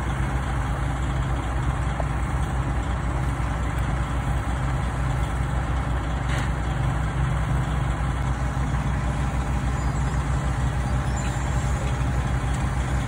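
Heavy diesel engines of a dump truck and a LeeBoy asphalt paver running steadily while asphalt is fed into the paver, a constant low drone.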